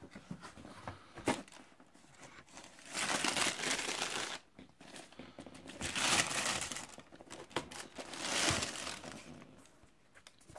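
Tissue paper crinkling and rustling as it is pulled back from a pair of trainers in a cardboard shoebox. It comes in three bursts a couple of seconds apart, after a few light taps in the first second or so.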